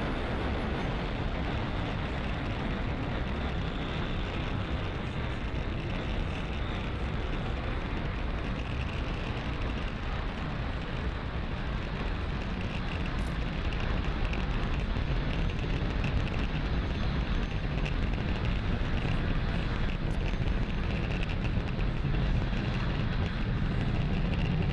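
Falcon 9 first stage's nine Merlin engines during ascent: a steady deep rumble that grows a little louder about halfway through.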